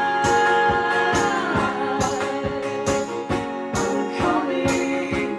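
Live band music: held sung notes over instruments, with a steady percussion beat of about two strikes a second.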